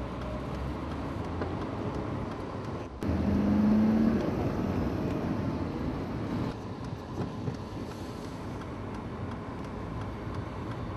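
A car running and driving, with steady engine and road rumble. About three seconds in the sound gets suddenly louder for a second or so, with a brief steady tone over it.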